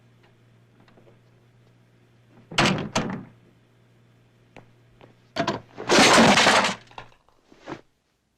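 Foley sound effects for an action scene, performed live with props: a few sharp hits about two and a half seconds in, then a loud crash of something breaking lasting about a second, and a last small knock. A faint steady low hum runs underneath.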